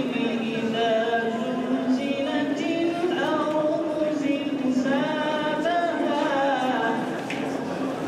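Unaccompanied singing: a slow melody with long held notes that glide between pitches.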